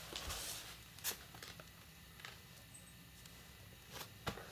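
Kitten's paws padding softly on a tatami mat, with a few faint sharp clicks, the clearest about a second in and near the end.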